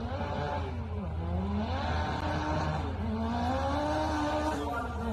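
Toyota Starlet drag car accelerating hard down the strip, its engine note dipping about a second in and then climbing again as it pulls away.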